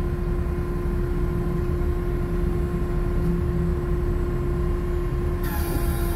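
Steady machinery hum holding one constant pitch, over a heavy low rumble of wind on the microphone; about a second before the end a hiss grows brighter.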